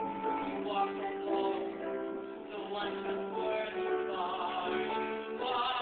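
A voice singing held notes with instrumental accompaniment, performed live in a room.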